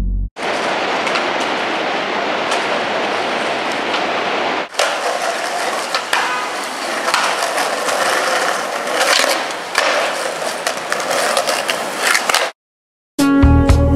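Skateboard wheels rolling on concrete pavement, a steady rolling noise with several sharp clacks of the board popping and landing. It breaks off for an instant about four and a half seconds in, then resumes and stops abruptly near the end.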